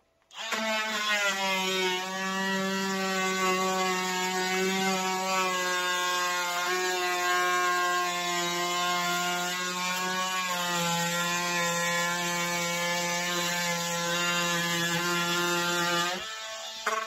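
Cordless DeWalt XR oscillating multi-tool running with its blade cutting into a plastic battery case, a steady buzzing whine that sags slightly in pitch now and then as the blade bites. It starts just after the beginning and stops near the end.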